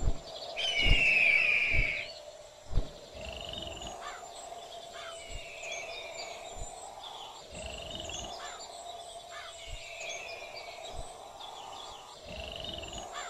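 A bird of prey's long, descending scream about a second in, then scattered bird calls and chirps over a faint steady drone, like a natural countryside soundscape.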